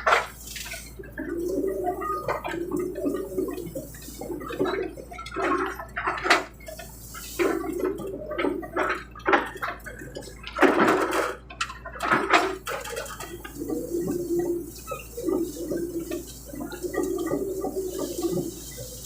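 Excavator at work clearing land: a mid-pitched hydraulic whine rises and falls in short spells as the arm moves, with repeated sharp cracks and rustling from brush and wood being crushed, loudest about ten to twelve seconds in.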